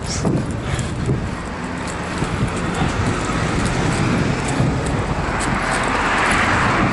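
Passing road traffic: a car's tyre and engine noise, swelling toward the end over a steady low rumble.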